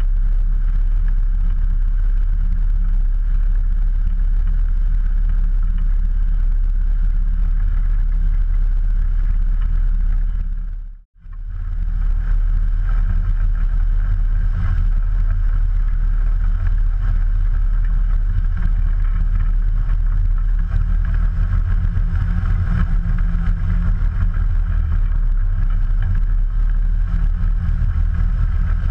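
Rotax 912 flat-four engine and propeller of an Ikarus C42 ultralight running at low taxi power, a loud steady drone. The sound drops out briefly about eleven seconds in, then returns unchanged.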